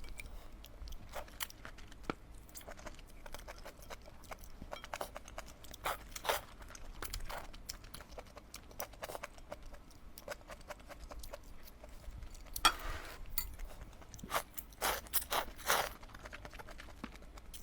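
Close-miked eating: steady chewing with scattered wet smacks and crunches, busier and louder for a few seconds near the end.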